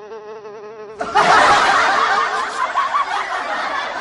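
Cartoon fly-buzzing sound effect, a steady wavering buzz. About a second in it gives way to a much louder, jumbled comic commotion with chuckle-like sounds.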